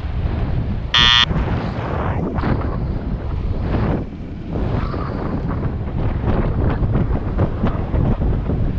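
Wind buffeting the microphone of a cyclist's action camera while riding, a steady low rushing. About a second in, a short high-pitched beep or ring sounds once.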